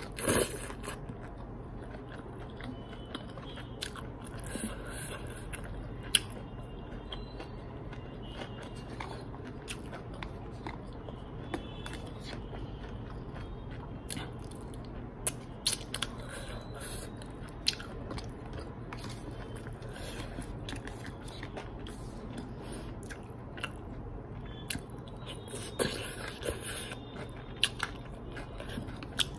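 Close-up chewing and biting of noodles eaten from a plastic spoon, with scattered short clicks and a louder burst right at the start. A steady low hum runs underneath.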